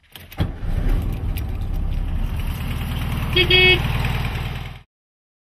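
Classic air-cooled Volkswagen Beetle engine catching and running at a lumpy idle, with a short horn beep about three and a half seconds in. The sound cuts off abruptly just before the end.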